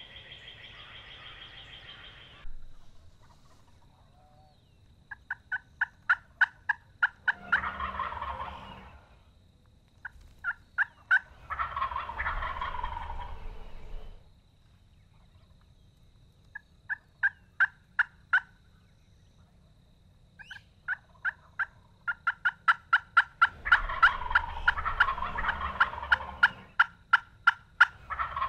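Osceola wild turkey gobbler gobbling three times, each gobble coming right after a quick run of hen yelps at about four notes a second. One run of yelps goes unanswered, and the last gobble overlaps the yelping.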